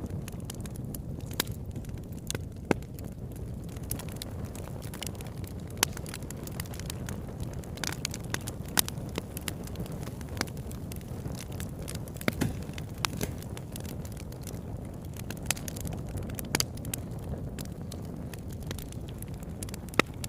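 Bonfire burning: a steady low roar of flames with sharp pops and crackles at irregular moments.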